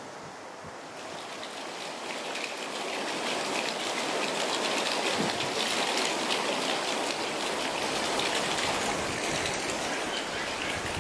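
Steady rush and patter of flowing water, growing louder about two seconds in and then holding steady.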